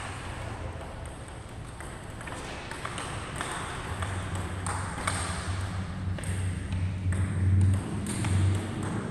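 Table tennis rally: the ball clicks sharply off the paddles and the table, over and over at a quick, uneven pace. A low hum swells underneath in the second half.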